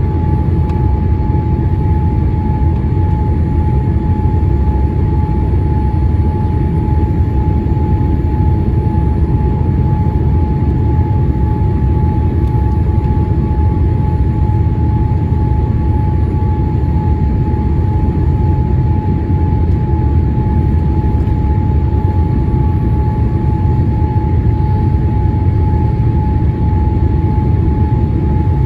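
Steady cabin noise inside a Boeing 787-8 airliner descending on approach with flaps extended: a low rumble of airflow and engines, with a steady high hum running through it.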